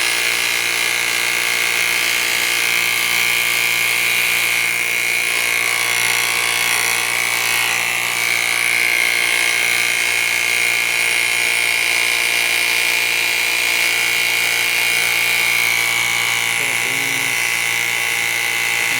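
Battery-powered pressure washer running steadily through a misting nozzle: a constant high-pitched motor whine over the hiss of the water spray.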